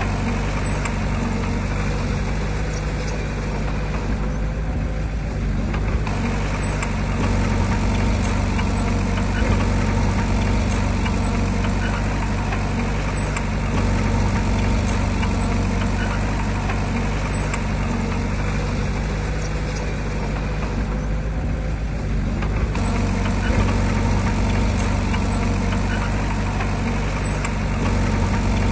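Heavy diesel engine of earthmoving machinery running steadily. It eases off briefly about four seconds in and again about twenty seconds in.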